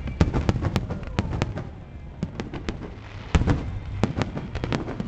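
Aerial fireworks bursting in quick, irregular cracks and bangs over a continuous low rumble, with the loudest bang a little past three seconds in.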